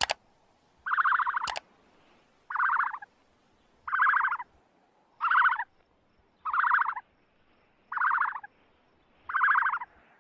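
An animal call repeated seven times, one short buzzy call about every second and a half. A sharp click comes at the start and another about one and a half seconds in.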